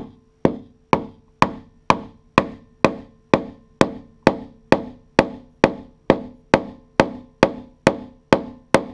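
Soft-faced hammer tapping a hatch lift strut into its mount, about twenty steady blows at roughly two a second, each with a short ring.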